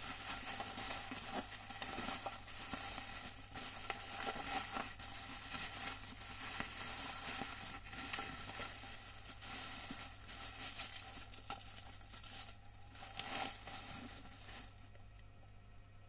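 Packaging being handled and unwrapped, with irregular crinkling, crackling and tearing, over a steady low hum. The handling dies down shortly before the end.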